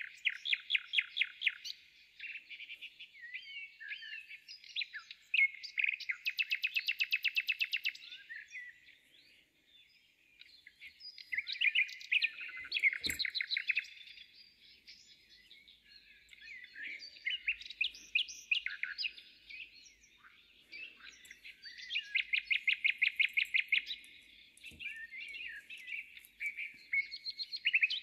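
A songbird singing in repeated phrases of chirps and fast trills, a new burst every five seconds or so, with a single sharp click about thirteen seconds in.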